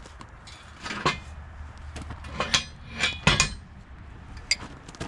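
Heavy steel parts knocking and clinking together, about five separate metallic strikes spread over a few seconds, as tractor three-point hitch parts and a rear blade are being fitted.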